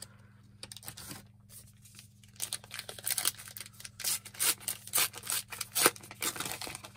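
Trading card pack wrapper being torn and crinkled, with cards rubbing and rustling as they are handled. A few light clicks at first, then dense rustling from about two seconds in.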